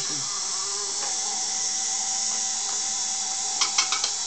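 Small DC motor spinning a fan blade, a steady whine. A few sharp clicks near the end.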